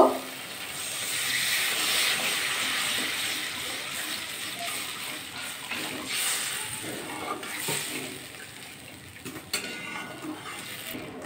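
Water poured into a hot metal kadai of fried masala paste, hissing as it hits the pan and slowly dying away as a metal spatula stirs it into a thin curry gravy. A few scrapes of the spatula against the pan come near the end.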